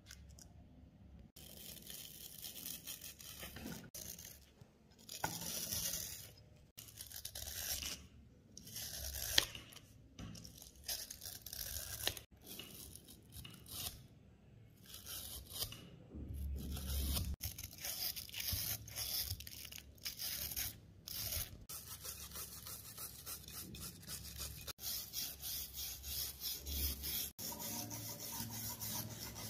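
Small hand wire brush scrubbing rust off the steel of an Astra 4000 Falcon pistol in quick back-and-forth strokes, in runs broken by short pauses.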